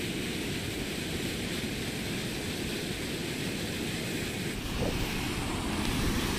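Water pouring over a low concrete weir and churning in the pool below: a steady rushing noise that stays level throughout.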